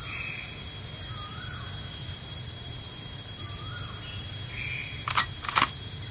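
Nature ambience: insects such as crickets chirring steadily and high, with birds giving short rising chirps every second or two. Two sharp clicks sound about five seconds in.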